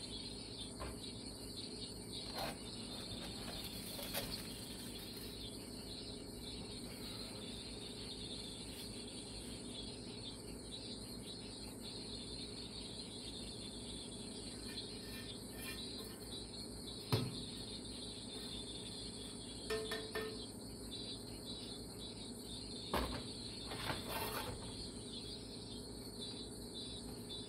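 Kitchen background with a steady high-pitched hiss or whine, broken by a few light knocks and clinks. The sharpest knock comes about two-thirds of the way through.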